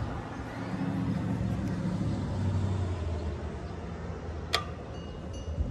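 Low engine hum of a passing motor vehicle that swells and then fades, with one sharp click about four and a half seconds in.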